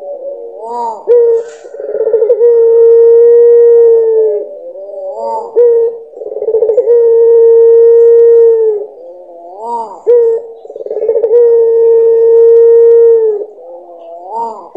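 Puter pelung dove, a long-cooing strain of ringneck dove, cooing: three long, level drawn-out coos of about two and a half seconds each, each opened by a short rising-and-falling note, repeating about every four and a half seconds.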